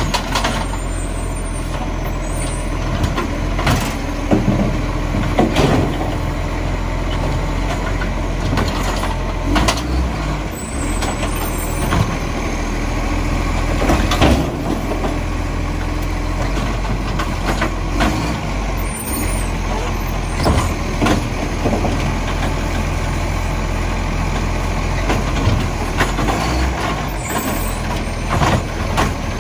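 Iveco ACCO side-loader garbage truck running at the kerb while its hydraulic side arm lifts and empties wheelie bins, with a steady diesel drone. Knocks and bangs every few seconds as bins are tipped and set down, and a few short hisses of air.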